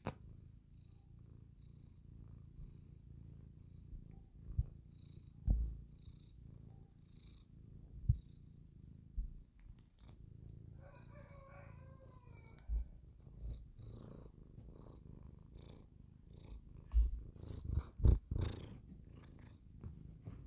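Tabby cat purring steadily, a low continuous rumble, with several soft low thumps through it. About ten seconds in, a brief wavering higher-pitched sound rises over the purr.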